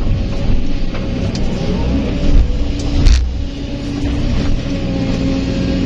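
Kobelco SK200 excavator's diesel engine running steadily under hydraulic load while the bucket empties dirt and rocks into a dump truck bed, with a sharp knock about three seconds in.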